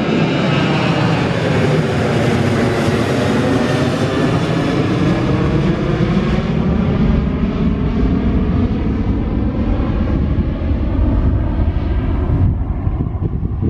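Jet engines of a Lion Air Boeing 737 at climb power just after takeoff, loud and steady, their whine slowly falling in pitch as the plane passes overhead and moves away. The higher part of the sound fades near the end.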